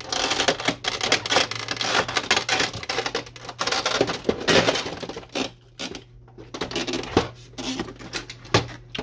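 Plastic parts of an inkjet printer's housing clicking, snapping and rattling as they are handled and pried loose: many quick sharp clicks with a quieter pause about two-thirds of the way through.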